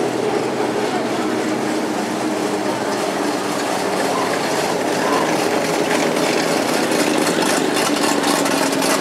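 Several classic cars and Corvettes driving slowly past one after another, their engines and exhausts running in a steady mixed rumble, with a quick ticking or rattling over it in the second half.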